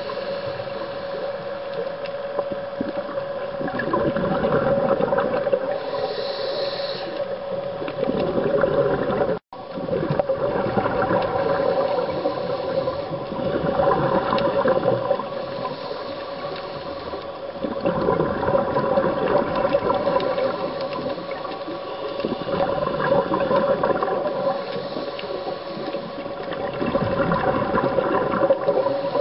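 Scuba regulator breathing heard underwater through the camera's housing: rushes of exhaled bubbles swelling every few seconds over a steady hum.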